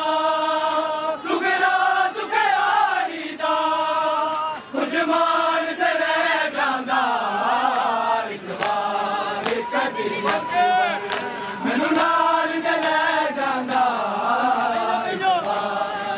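A crowd of men chanting a Punjabi noha together in long, wavering sung lines, with sharp slaps of hands beating on chests (matam) cutting through, more often in the second half.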